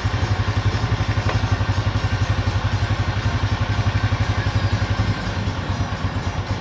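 Honda Revo Absolute's single-cylinder four-stroke engine idling with steady, even pulses, a little quieter about five seconds in. It is running smoothly with no cam chain ticking, after an overhaul with a new piston and with the cam chain tensioner now filled with oil.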